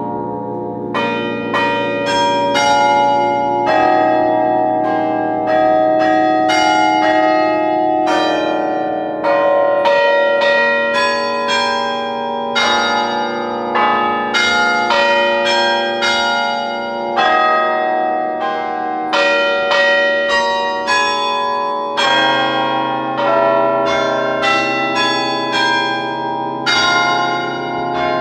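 Carillon bells of Sather Tower played as a tune: a steady run of struck bell notes, often several at once in chords, each ringing on and overlapping the next.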